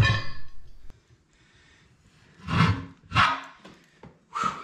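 Long steel tire irons scraping and knocking against a steel wheel rim and the rubber tire bead as they are worked out of the tire: two short sounds about half a second apart past the middle, and a shorter third near the end.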